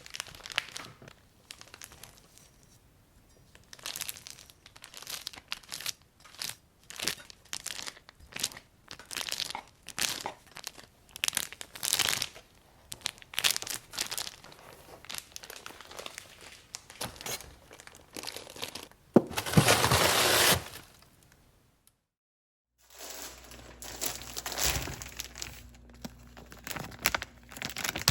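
Packaging crinkling and rustling as it is handled, with many light clicks and taps. A louder rush lasts about a second and a half about two-thirds of the way in, then after a brief drop to silence the handling resumes over a faint low hum.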